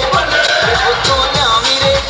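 Song with a singer over a steady, fast drum beat of about four beats a second.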